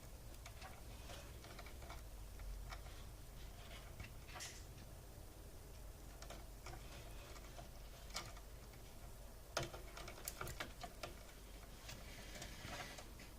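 Faint scattered small clicks and plastic rustling from front-panel case wires being handled and their tiny connectors pushed onto motherboard header pins. A few sharper clicks come about ten seconds in.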